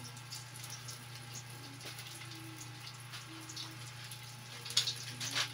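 Faint, irregular crackling and sizzling from cooking over a wood fire, over a steady low hum.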